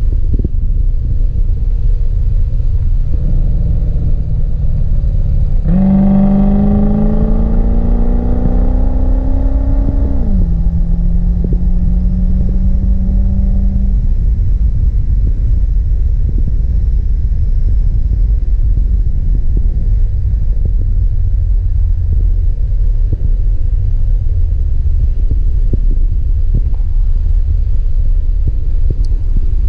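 C4 Corvette's V8 engine accelerating: its note climbs steadily for about four seconds, drops abruptly, holds steady for a few seconds and then sinks under a constant heavy low rumble of wind and road noise.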